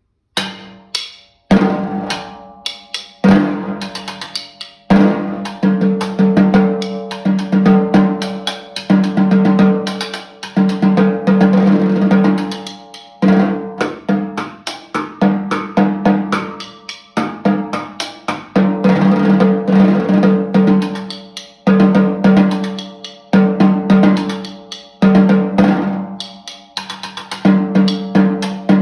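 Snare drum played solo with sticks: rhythmic phrases of strokes and rolls, broken by short pauses.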